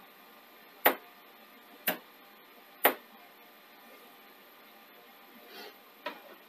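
Sharp mechanical clicks from an opened 1986 Mitsubishi HS8010 CCTV VHS recorder, about one a second, three of them before they stop. A softer rustle and a light knock come near the end.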